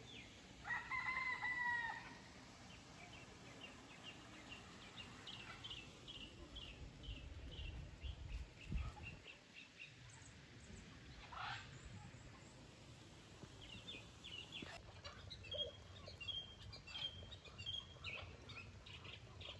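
A rooster crows once about a second in, one long held call, the loudest sound here. Small birds chirp in quick runs of short high notes, with more chirping near the end.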